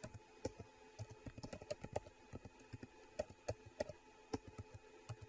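Typing on a computer keyboard: irregular keystrokes clicking in quick runs of several a second, with short pauses between runs.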